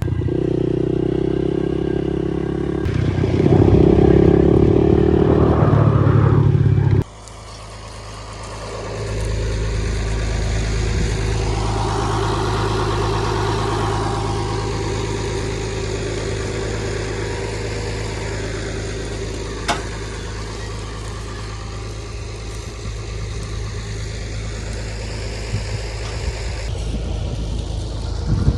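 Vehicle engine running steadily, with abrupt changes in the sound about three and seven seconds in, then a long, steady low engine drone.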